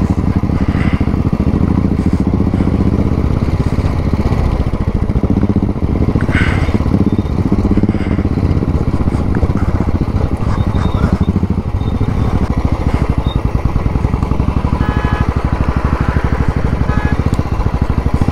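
Royal Enfield Classic single-cylinder motorcycle engine running steadily under way, its exhaust beating in an even, rapid pulse.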